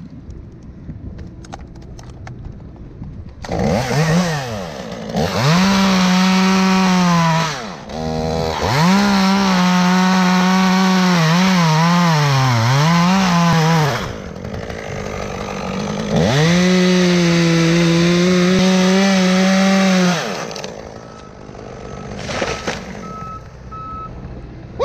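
Two-stroke chainsaw revved to full throttle and cutting wood in three long runs. In the middle run the engine pitch dips and wavers under load. Between runs and near the end it drops back to idle.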